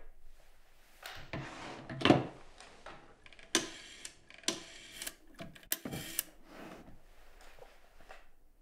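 A telephone being picked up and dialled: a run of short mechanical clicks and clatters, the loudest knock about two seconds in.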